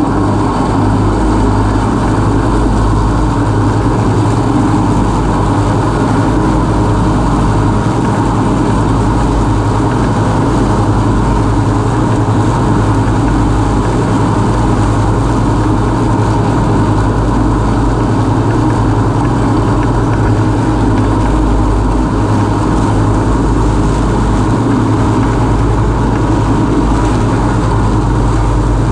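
Husqvarna Rider R214 TC ride-on mower's 586 cc two-cylinder Loncin engine running steadily under load while its front three-blade deck mulches slightly tall grass.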